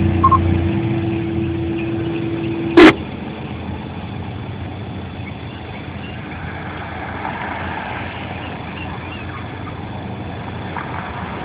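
Ham radio receiver: a short beep at the start, then a steady hum from the open channel that ends in a loud squelch click about three seconds in as the transmission drops. After that, a steady low rumble.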